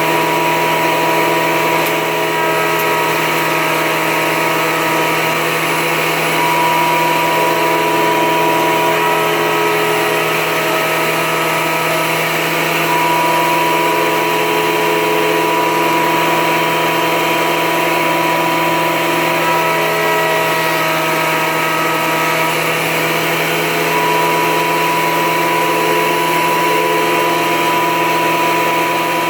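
Porter Cable portable thickness planer running steadily with a loud motor whine and several steady tones, its level rising slightly a few times.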